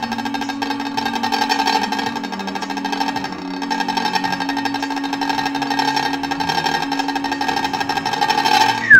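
A fast, steady drum roll over held notes, ending near the end in a short, loud downward glide.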